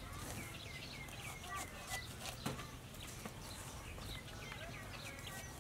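Birds chirping: many short, high chirps that mostly slide down in pitch, repeating on and off.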